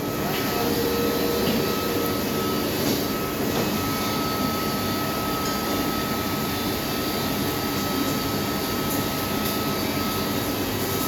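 Steady mechanical running noise with a thin, high whine held almost throughout.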